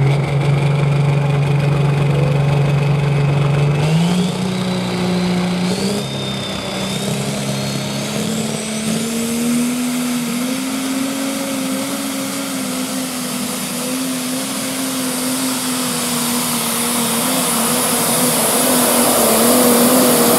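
Case IH Magnum super stock pulling tractor's diesel engine running flat out under load as it pulls the sled. Its pitch jumps up about four seconds in and then climbs slowly, over a high whine that rises in steps. It grows louder near the end as the tractor comes past close by.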